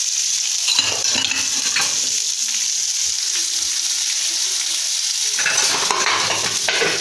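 Cabbage and capsicum sizzling in hot ghee in a kadai, with a spoon stirring and scraping against the pan in two spells, about a second in and again over the last second and a half.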